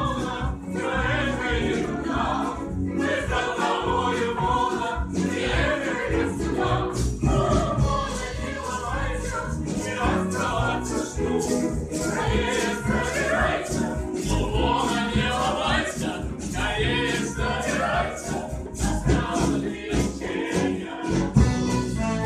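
A song with several voices singing together over an instrumental accompaniment with a steady beat.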